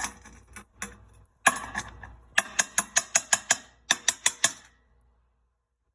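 Hammer striking the glassy fire-assay slag off a lead button. A few spaced sharp strikes come first, then two quick runs of taps at several a second, stopping near the end.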